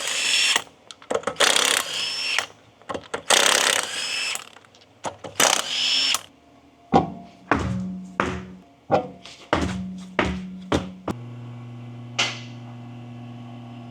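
A cordless power tool run in four short bursts over the first six seconds, removing fasteners during disassembly, followed by scattered knocks and clicks of parts being handled. After that a low steady hum with a few clicks carries on.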